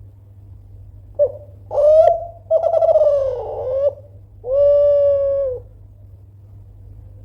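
Kelantan-strain spotted dove cooing: one phrase of a brief opening note and two wavering coos, ending in a long, steady drawn-out coo.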